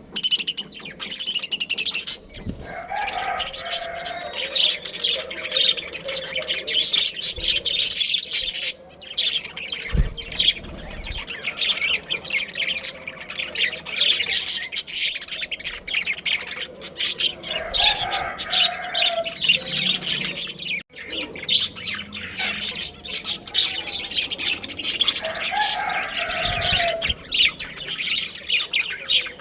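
Budgerigars chirping and chattering without a break, fast overlapping high chirps, with a few lower, longer calls about three seconds in, around the middle and near the end.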